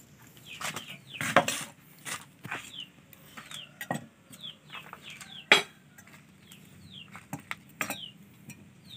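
Scattered clinks and knocks of steel on steel and wood: the golok blade and cut nail pieces being handled on a wooden chopping block, with one sharp knock about halfway through. Birds peep in short falling chirps throughout.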